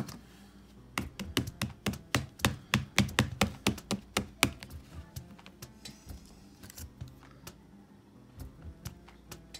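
A quick run of sharp clicks and taps as a small thin plastic pudding cup is squeezed and tapped to work a set candy pudding out of it, then a few fainter clicks.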